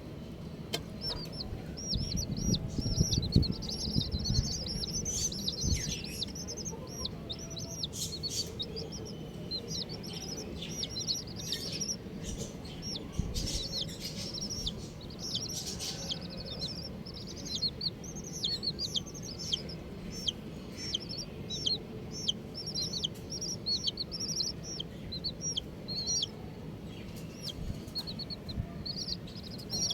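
Baby chicks peeping: many short, high, falling peeps, several a second and often overlapping, with some low knocks and rustling in the first few seconds.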